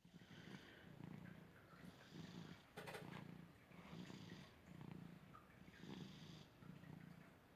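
Domestic cat snoring in its sleep: faint, rhythmic snores about one a second, with a breathy hiss on every other breath. A brief click a little under three seconds in.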